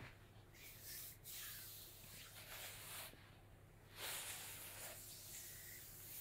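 Faint rustling and rubbing as canvas sneakers with rubber soles shift against a bedsheet and are handled, swelling in two soft stretches. A brief click at the very start.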